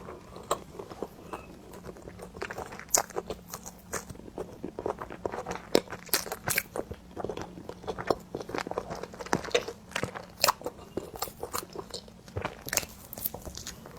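A person chewing and biting cream bread close to the microphone, with many irregular sharp, wet mouth clicks.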